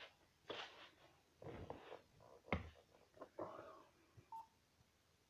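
Faint rustles and a sharp click, then a single short electronic beep just after four seconds.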